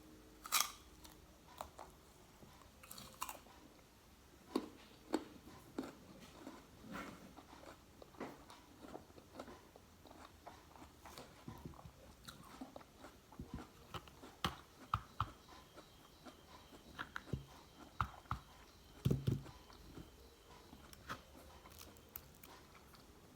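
Close-up biting and chewing of crisp raw guava: irregular sharp crunches and wet chewing clicks, with a few louder bites.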